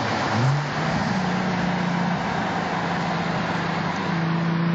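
Car engine running under way, its note rising quickly about half a second in and then holding steady, over tyre and road noise, heard from inside a car's cabin.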